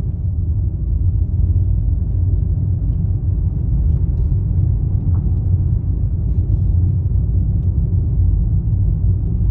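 Steady low road rumble heard inside the cabin of a moving car.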